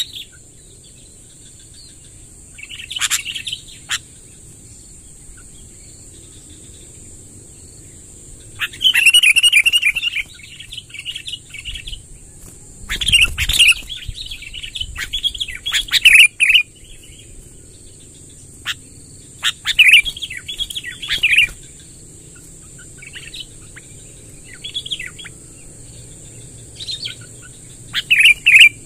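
Sooty-headed bulbul (kutilang) song: bursts of bright, bubbling warbled phrases separated by pauses of a few seconds, with the longest run of song in the middle.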